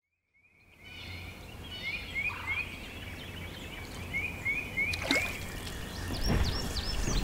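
Forest ambience fading in, with birds singing: a run of short rising chirps repeated again and again, and other birds calling higher near the end, over a steady low rumble. A single sharp click about five seconds in.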